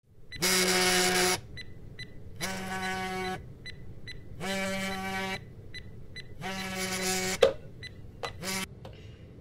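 Smartphone vibrating against a wooden stool top: four buzzes of about a second each, two seconds apart. A sharp knock and two short clicks follow as a hand grabs the phone and picks it up.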